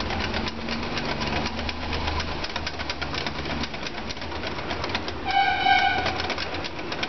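Hand whisk beating besan and curd batter in a glass bowl: rapid clicking and scraping of the wires against the glass. Just past five seconds a horn-like tone sounds for about a second over the whisking.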